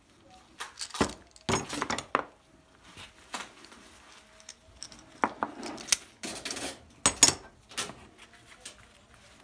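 Steel F-clamps being loosened and taken off freshly glued wooden blocks after the glue has set: scattered metallic clinks and rattles of the clamp bars and jaws, with knocks of the small wooden pieces set down on a wooden bench. The loudest clinks come about six and seven seconds in.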